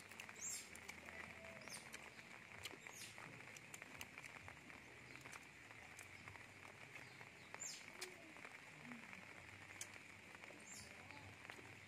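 Near silence: faint outdoor ambience with a steady high hum and a few short, faint bird chirps.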